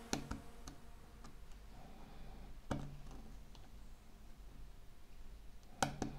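Metal tweezers tapping and clicking against a phone's plastic frame and small parts during reassembly: a few sharp, separate clicks, two at the start, one a little before the middle and two in quick succession near the end.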